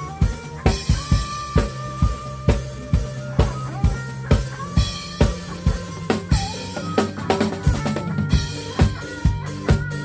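Drum kit, a Tama Starclassic with Zildjian cymbals, played live over a synth-led backing track: a steady kick-and-snare beat with cymbal crashes.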